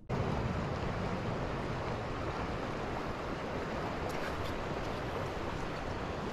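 Steady rush of a shallow river flowing over a gravel riffle.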